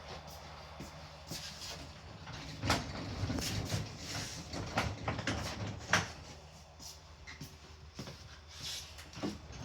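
Heavy tool table on casters being handled and rolled, with a low rolling rumble in the middle and several sharp knocks and clunks, the loudest two about three seconds apart.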